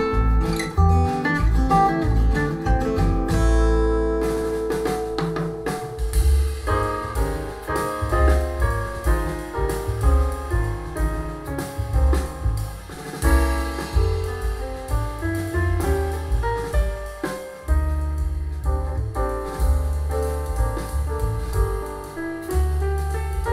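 Recorded music played through a pair of Audiolab Symbol two-way bass-reflex tower speakers with SEAS tweeters: a strummed acoustic-guitar folk track ends about four seconds in, and a jazz track follows.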